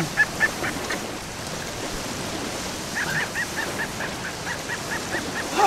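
Seabirds calling over a feeding tuna school: a rapid run of short, high chirps, about five a second, starting about three seconds in, with a few more near the start. Underneath is the steady wash of open sea and wind.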